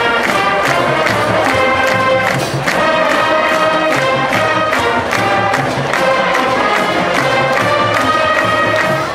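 High school marching band playing: brass sounding sustained chords over a steady marching drum beat.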